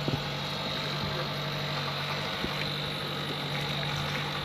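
A boat's engine running steadily at low revs, a constant hum with a thin high whine above it.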